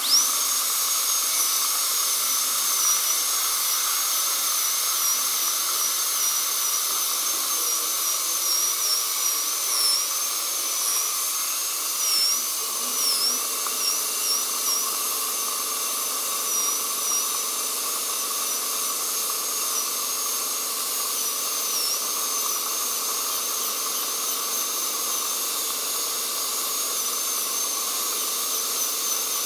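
High-speed dental drill spinning up to a high steady whine, its pitch dipping briefly again and again, over the steady hiss of a dental suction aspirator.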